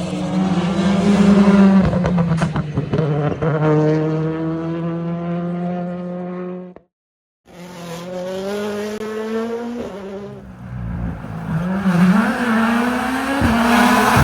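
Turbocharged rally car engines at full effort: one car runs hard, with a few sharp cracks about two seconds in, before the sound cuts off abruptly. A second rally car follows, its engine pitch swinging up and down through the gears, with some tyre squeal.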